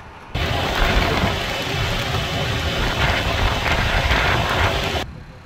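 Ka-52 attack helicopter's twin turboshaft engines and rotor running, a loud steady rumble and rushing noise heard at the open cockpit. It cuts in abruptly about a third of a second in and stops abruptly about five seconds in.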